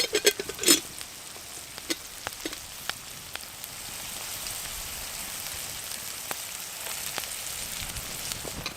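Bacon frying in butter in a skillet over a campfire: a steady sizzle with scattered pops. A few clattering scrapes in the pan in the first second.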